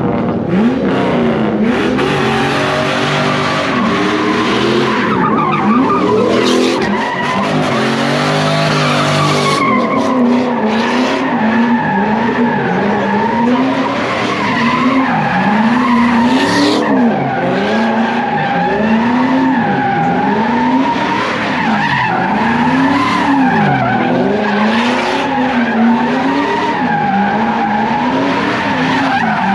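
Car engine revving up and down in a steady rhythm, about once a second, over continuous tire squeal, as a car does donuts at a street sideshow.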